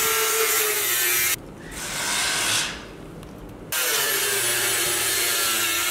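Angle grinder cutting into the steel body panel of a VW T2 van: a loud, hissing grind with the motor's whine sinking in pitch as the disc bites. It drops away for about two seconds after the first second and a half, then cuts again.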